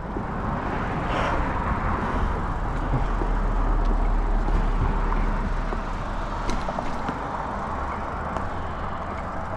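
Wind rumbling on the microphone over the rolling noise of a bicycle moving along the road, a steady noisy rush that swells a little midway and then eases.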